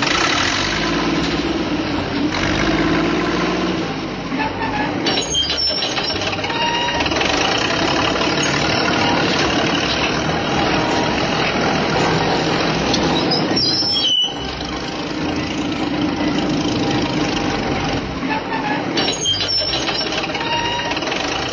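Heavy truck engine running steadily, broken by abrupt cuts about 5, 14 and 19 seconds in.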